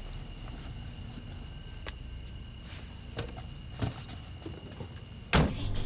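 Crickets trilling steadily at night, with a few faint knocks and rustles of someone moving. Near the end the trilling cuts off at a sudden loud thump.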